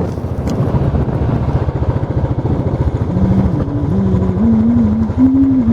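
Motorcycle engine running with a rapid, even low rumble. From about halfway through, a held tone rides over it, stepping up and down in pitch.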